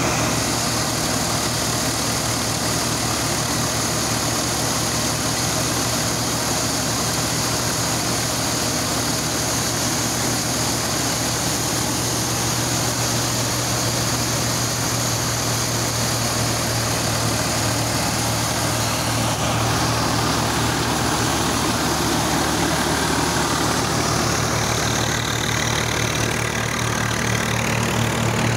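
A tractor-driven Punni thresher running steadily while threshing, its drum and fan whirring over the steady hum of the tractor engine that drives it.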